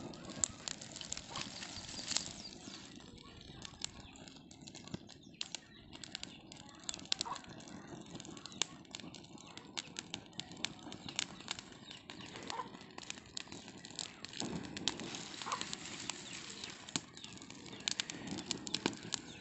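Open fire of dry fronds and leaves crackling under a bundle of fresh peanut plants roasting in their pods: irregular sharp crackles and pops over a steady low rush.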